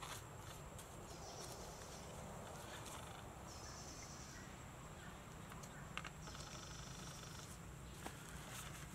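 Faint forest ambience with a steady low hiss. A high, buzzing trill from a wild animal comes and goes about three times, and there are a few light clicks about six and eight seconds in.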